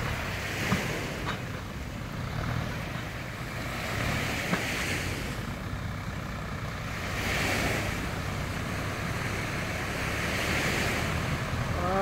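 Small waves washing onto the shore, swelling every few seconds, over the low steady running of a tractor engine hauling a speedboat on its trailer up a concrete ramp, with wind on the microphone.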